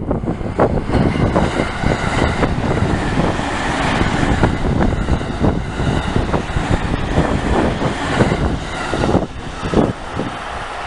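Train passing over a Japanese level crossing: a continuous rumble and rattle of wheels on rail with rapid clacks, under the crossing's electronic warning bell. The rattle eases off about nine seconds in.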